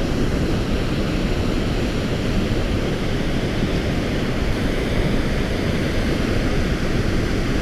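Steady rush of river water pouring through a spillway, an even noise with no breaks.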